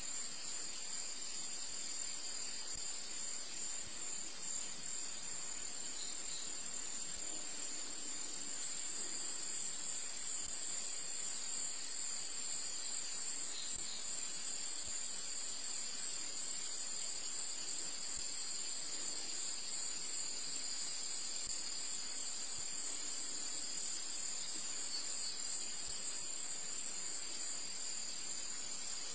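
Crickets trilling steadily, two continuous high-pitched notes with no break.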